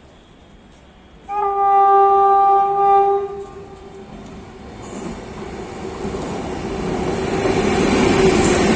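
Indian Railways WAP-7 electric locomotive sounding its horn once in one steady blast of about two seconds, starting a little over a second in. Then the rumble and wheel noise of the express train grows louder as the locomotive approaches and passes close by near the end.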